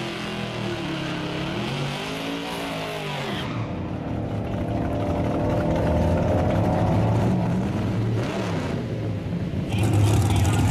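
A full-size van's engine at full throttle down a drag strip, its revs climbing and dropping at each gear change as it pulls away and fades into the distance. Near the end a louder, steady low engine rumble comes in.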